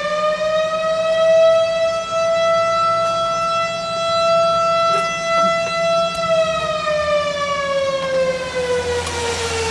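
Federal Signal STH-10A fire siren sounding an alarm with one pitched tone. The tone climbs slightly at first and holds steady near its top pitch, then about six seconds in it begins to wind down, its pitch falling slowly.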